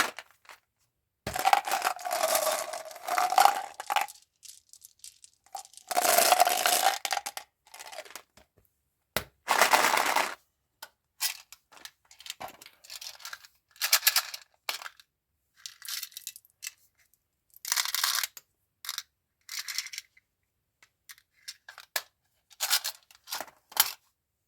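Candy and gum packaging being handled and torn open: a run of irregular tearing and crinkling bursts with sharp clicks in between, two of the longer bursts carrying a steady squeaky tone.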